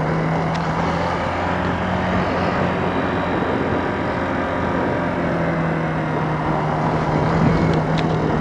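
Kawasaki KLX125's single-cylinder four-stroke engine running steadily while riding downhill, mixed with steady wind rush on a helmet-mounted external microphone that is wrapped in tissue instead of a foam windscreen. The engine's hum fades under the wind for a few seconds mid-way, then comes back.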